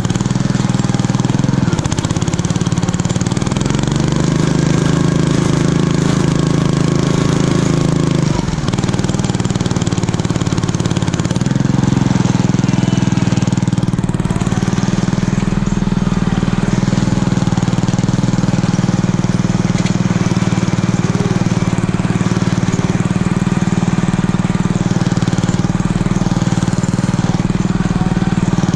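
Homemade garden tractor's 6.5 hp small engine running hard while the tractor pushes wet snow with a front blade. Its pitch rises a couple of seconds in, drops sharply around eight seconds, then climbs back and holds steady.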